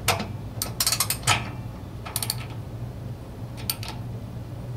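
Ratcheting socket wrench clicking in several short runs of rapid clicks as it tightens a new spark plug into a small generator engine.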